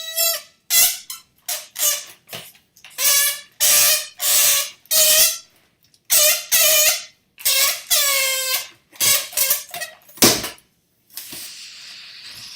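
Air escaping through a stretched balloon neck, squealing in about a dozen short bursts whose pitch wavers, with a soft steady hiss in the last second or so.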